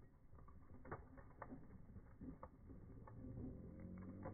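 Near silence with scattered soft clicks and ticks from a child's small bicycle with training wheels rolling over concrete, slowed down and low in pitch. A low steady hum comes in near the end.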